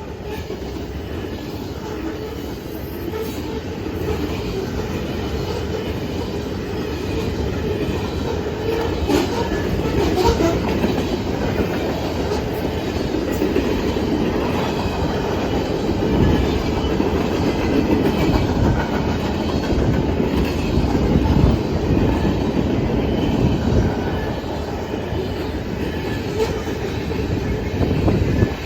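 Norfolk Southern manifest freight train rolling past at close range, loud, its wheels clacking over the rail joints in an irregular stream of knocks.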